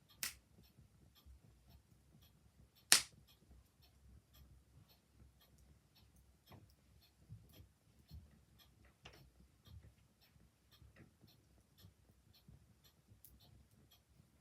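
Open wood fire crackling quietly with a few sharp pops, the loudest about three seconds in, over the steady ticking of a clock.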